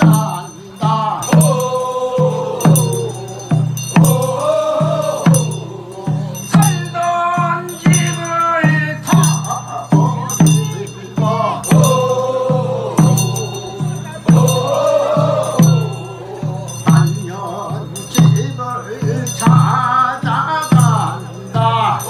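Sangyeo-sori, the Korean funeral bier song, sung by a chorus of bier-bearers and a lead singer over a steady beat of a buk barrel drum, a little over one stroke a second.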